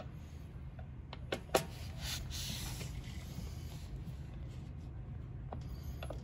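Screwdriver turning the roller adjustment screw in the bottom of an aluminium patio screen door frame to raise the door: a couple of sharp clicks of metal on metal about a second and a half in, then a brief scraping, over a low steady rumble.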